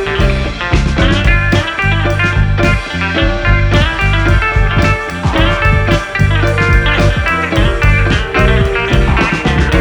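Background music: a guitar-led blues-rock track with a steady beat.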